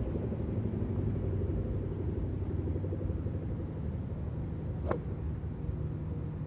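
A golf club strikes a ball once about five seconds in, a single sharp click. A steady low rumble runs underneath.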